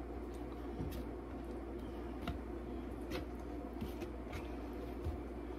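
Faint soft taps and handling sounds of raw chicken pieces being turned over by hand on a pan, a few light knocks about a second apart, over a steady low background hum.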